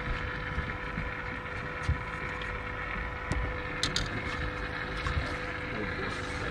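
Wind buffeting the microphone on an open boat, over a faint steady hum, with a few light clicks and taps from handling fishing tackle.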